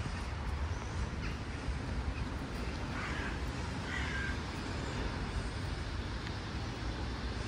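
Steady low outdoor street rumble, with two short calls about three and four seconds in.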